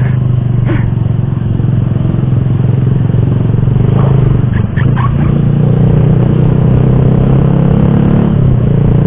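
Motorcycle engine running steadily with road and wind noise while riding, heard from the rider's own camera.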